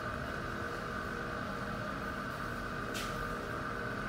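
Electric pottery wheel running at a steady speed, its motor giving a constant hum, with one short click about three seconds in.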